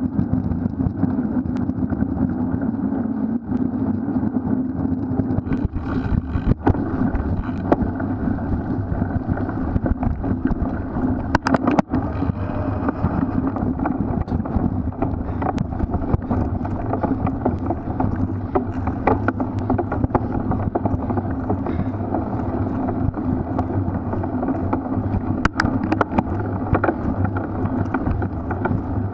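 Cyclocross bike (Specialized Crux Elite X1) being ridden hard over rough ground: a steady rush of wind over the camera's microphone and tyre and frame noise, with frequent sharp clicks and knocks from the chain and bike rattling over bumps.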